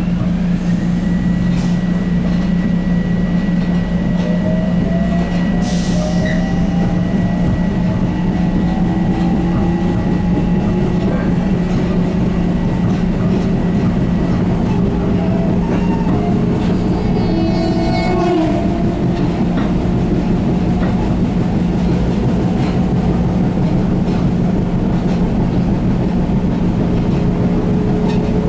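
Running noise inside an electric commuter train pulling away from a station: a steady low hum with faint whines slowly rising in pitch as it picks up speed. About two-thirds of the way through comes a short run of quick, evenly repeated high notes.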